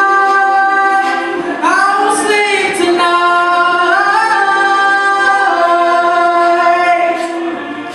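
All-male a cappella group singing: a lead voice sings a line that slides up and down about two seconds in, over sustained chords from the backing voices.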